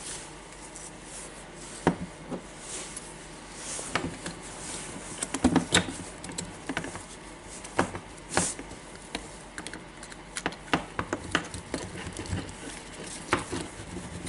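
Handling noise from reassembling a cordless drill: irregular small clicks, taps and knocks of plastic and metal parts as the gearbox and motor are fitted into the plastic housing, with brief rustles of gloved hands.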